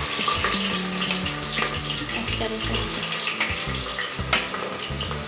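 Sliced onions sizzling as they fry in hot mustard oil in an aluminium pressure cooker: a steady hiss full of small crackles, with a sharper click about four seconds in.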